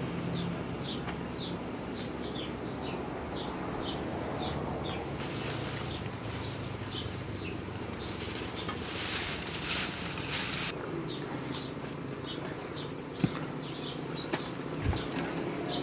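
A bird calling over and over in short high chirps, about two a second, over steady outdoor ambience. Dry brushwood rustles as it is dragged a little past halfway, and a few sharp knocks near the end come from dry branches being handled.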